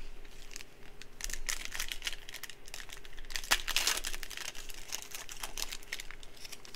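Wrapper of a Panini Prizm football trading-card pack crinkling and tearing as it is ripped open and handled, in irregular crackles with the loudest tearing about three and a half seconds in.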